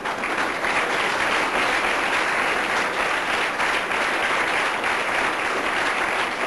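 Audience applauding, a dense even clapping that swells in at the start and keeps going.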